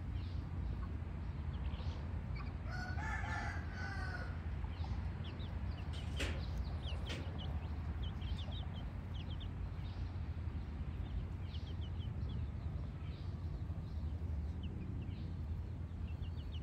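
Asil chick peeping in short, high cheeps throughout. A rooster crows once about three seconds in, and there are two sharp clicks around six and seven seconds, over a steady low rumble.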